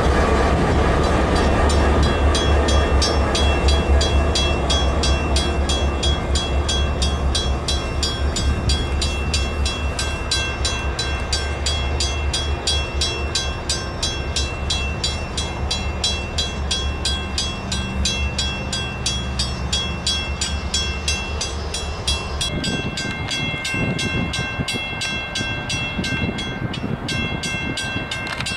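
Two CSX EMD GP40-2 diesel locomotives, each with a 16-cylinder two-stroke engine, rumbling past with two boxcars. The engine sound fades as the train moves away and drops off sharply about 22 seconds in. Over it a grade-crossing bell rings steadily with even strokes.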